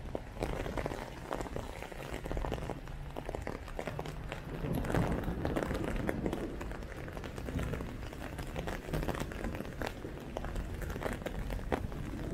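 Hail falling hard: a dense, irregular patter of sharp ticks from hailstones striking the ground and nearby surfaces, over a steady hiss.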